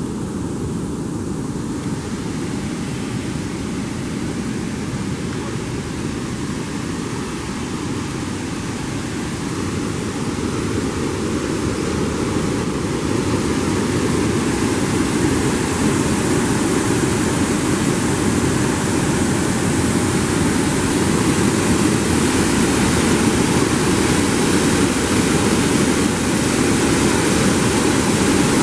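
Water spilling over a concrete river weir at a set of sluices: a steady rushing noise that grows louder and brighter about halfway through.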